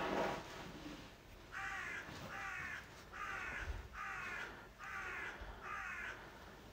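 A crow cawing six times in an even series, a little faster than one call a second. A short loud rasp of a handsaw cutting plastic board comes just before the calls, at the very start.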